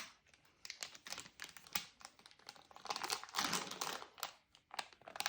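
Plastic toy packaging crinkling and crackling in irregular clusters of small clicks as it is handled and opened.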